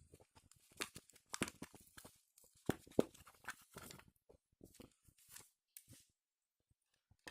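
Irregular small clicks, taps and scrapes of plastic being handled as a battery cell is fitted into the battery compartment of an electric kitchen gas lighter. The clicking stops about six seconds in.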